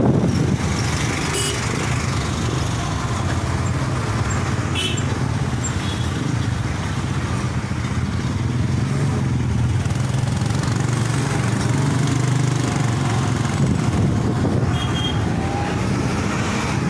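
Motorcycle engine running steadily while riding, heard from the rider's seat, with a low, even drone.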